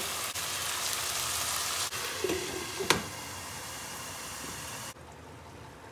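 Chicken and red lentils frying in oil in a pan, sizzling, with a sharp clink about three seconds in as a glass lid goes on; the sizzle is quieter after that.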